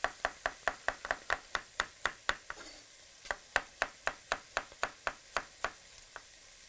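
Chef's knife rapidly slicing carrots on a wooden cutting board, the blade knocking the board about four to five times a second. The knocks come in two quick runs with a short pause between them, then one last cut near the end.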